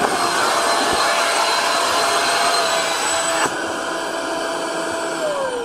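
Black Diamond Jetforce avalanche airbag's electric fan spinning up at once and blowing at full speed, a loud rush of air with a steady high whine, as the airbag inflates. About three and a half seconds in the rush of air drops off, and near the end the whine falls in pitch as the fan winds down with the bag fully inflated.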